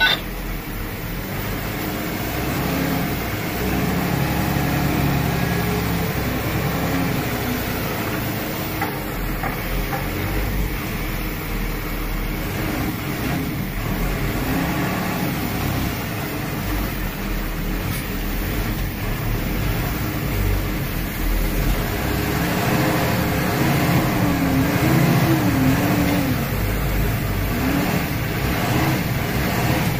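Semi truck's diesel engine running at low revs while the rig reverses a trailer, heard from the cab with the driver's window open. The engine note wavers up and down a little with the throttle.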